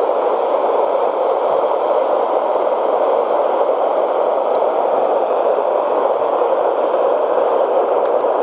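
Steady hiss of radio static from a receiver picking up no voice or tones.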